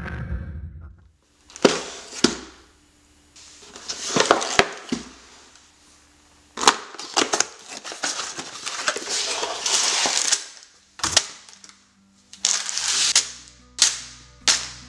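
A cardboard Lego set box being torn open by hand and the plastic bags of bricks inside handled: a series of sharp tearing snaps and crinkling rustles with short pauses between them. The intro sound fades away in the first second, and backing music comes in near the end.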